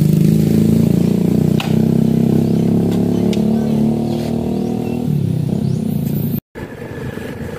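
Small underbone motorcycle engine running steadily at idle, heard close up. A little after five seconds its note shifts, and near the end the sound cuts out for a moment.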